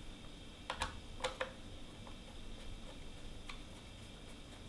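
Small countersunk screws being started into a router base with a screwdriver: a few faint, sharp ticks of the screwdriver tip and screws against the metal base and clear plastic jig, clustered about a second in, with one more a couple of seconds later.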